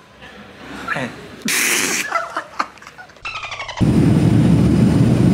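Steady low rumble of an airliner cabin, engine and air noise heard from a passenger seat, cutting in abruptly about four seconds in. Before it, a quiet room with a few faint voices and a short hiss.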